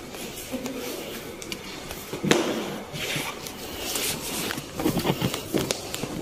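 Shoes and slide sandals being set down and shuffled on a hard floor while changing footwear, with knocks and scuffs and handling rustle. The loudest sound is a sharp knock a little over two seconds in.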